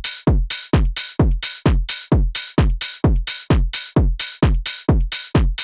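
Electronic techno drum loop run through the Camel Crusher distortion and compressor plugin: a distorted kick drum hits about four times a second, each hit a quickly falling thud with a gritty, crackly top.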